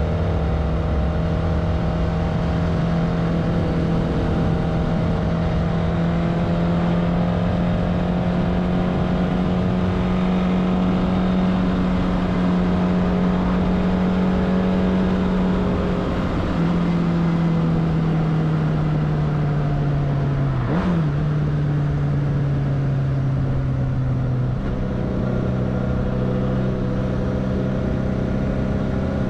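Kawasaki GT 550's air-cooled inline-four engine running steadily at cruising speed. Its pitch holds, drops in a step a little past halfway, then eases lower toward the end. A brief sharp noise cuts through about two-thirds of the way in.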